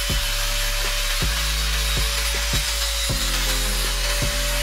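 Angle grinder with an abrasive disc grinding the steel handle of a hammer: a steady motor whine over the hiss of metal being ground off.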